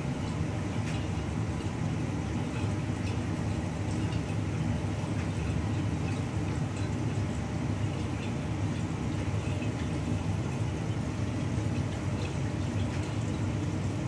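Aquarium filtration equipment running: a steady low hum, with faint water trickling and small scattered drips over it.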